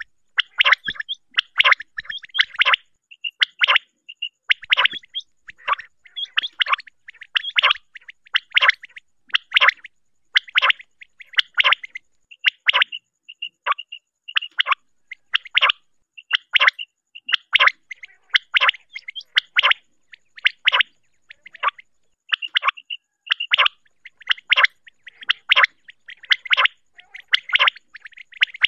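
Common quail calling over and over: short, sharp notes in quick clusters, roughly one to two a second. It is a quail-call recording of the kind played to lure quail.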